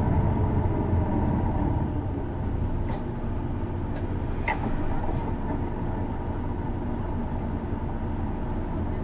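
Isuzu Erga city bus heard from inside the cabin while driving: a steady low diesel engine and drive rumble. It eases slightly about two seconds in, with a few short sharp clicks or rattles a few seconds in.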